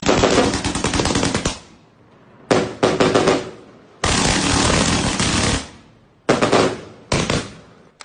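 Ground firework going off in five bursts of rapid crackling pops, like machine-gun fire, each lasting about half a second to a second and a half with short quiet gaps between.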